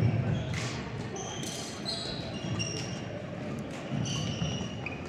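Sports shoes squeaking in short, high chirps on an indoor court floor, over a murmur of voices echoing in a large hall.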